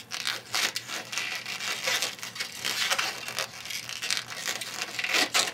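Inflated white 160 latex modelling balloon being handled as its two ends are tied together: dense, irregular rubbing and scratching of latex on fingers and latex.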